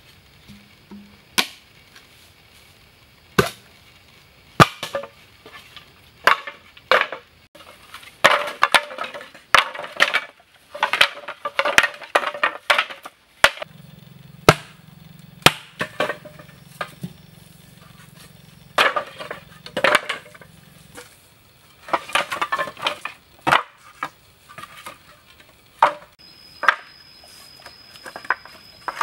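Cut green bamboo tubes and split bamboo slats knocking and clattering against one another as they are handled, sorted and stacked: irregular sharp knocks, some single, some in quick clusters.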